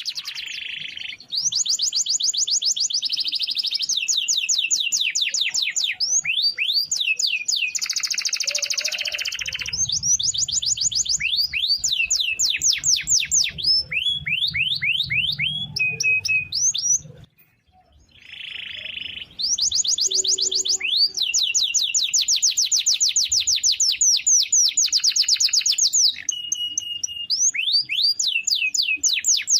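Domestic canary singing long rolling phrases: fast trills of repeated high sweeping notes, one phrase running straight into the next, with a brief pause a little past halfway.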